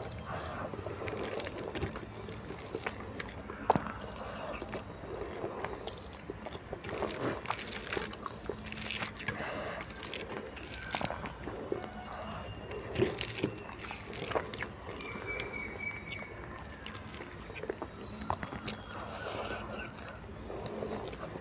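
Wet chewing and mouth smacks as instant noodles are eaten by hand, with irregular light clicks from fingers picking at the plate.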